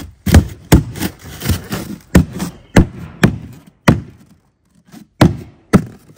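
Hands thumping down on a rigid extruded-polystyrene foam insulation board (pink Foamular NGX), pressing a cut board into a wooden floor frame so it seats between the joists. About a dozen dull knocks, roughly two a second, with a short pause about two thirds of the way through.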